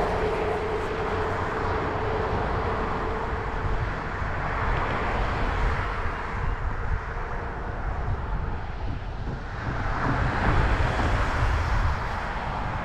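Cars passing on a wet road, the tyre hiss swelling up and fading near the start and again about ten seconds in, over a steady low rumble from the moving bicycle.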